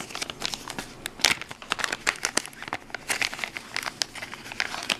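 Packaging being opened by hand, crinkling and rustling in a rapid, irregular string of crackles.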